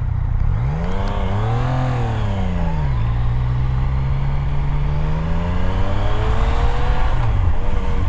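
2018 Yamaha MT-09's 847cc inline-three engine on its stock exhaust, revving up and back down about a second in. It then pulls steadily higher in pitch for several seconds as the bike accelerates, and falls off near the end, with wind noise underneath.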